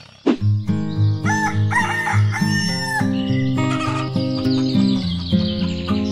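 A rooster crowing, with a drawn-out call of several syllables about a second in and a shorter call near the end, over background music with a pulsing bass. The music starts abruptly with a short falling sweep.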